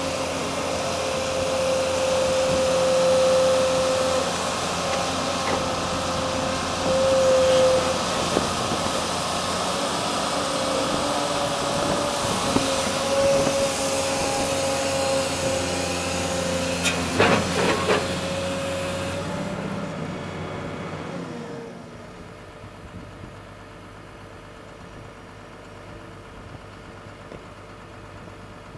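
Excavator's diesel engine and hydraulics running with a steady whine, with a few clanks about 17 seconds in. Around 20 seconds in the sound drops sharply to a quieter, duller run.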